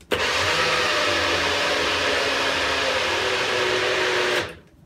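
Nutribullet blender motor starting abruptly and running steadily for about four seconds, blending protein powder into a thick green smoothie, its pitch stepping up a little about three seconds in, then winding down as the cup is released.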